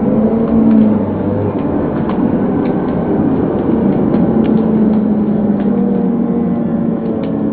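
Large arena crowd cheering and yelling steadily, many voices blending into a loud, continuous roar with held shouts.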